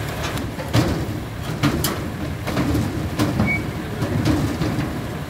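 Mini excavator's diesel engine running while its steel tracks clank and grind across a lorry's steel deck, with irregular metallic knocks over the steady engine.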